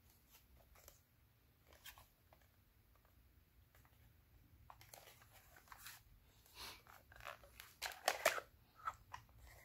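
Faint handling noise of BB rifle magazines turned over in the hands: light clicks and scrapes, sparse at first and busier and a little louder in the second half.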